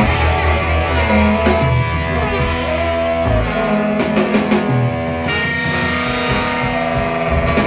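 Live rock band playing with drum kit, electric guitar, bass guitar, saxophone and trombone. The bass drops out about three seconds in, and from about five seconds the band holds a sustained chord.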